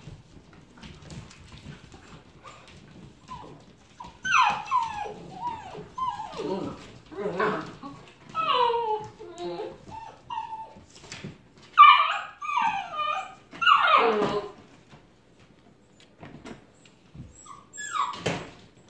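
Labrador–Saint Bernard cross puppies whining and yipping while they play-fight, in short calls that slide down in pitch. The calls come in clusters from about four seconds in until about fourteen seconds, with one more near the end. Before that there are only faint clicks and scuffles of paws on a hardwood floor.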